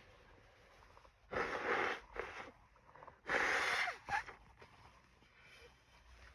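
A person blowing their nose hard twice, two long snotty blasts of air about two seconds apart, each followed by a short second puff.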